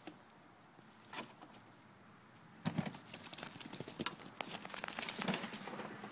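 Whippet's paws scrabbling and scuffling through dry straw and debris while hunting rats: a single knock about a second in, then a burst of rapid scratching and rustling from just under three seconds in that keeps on to the end.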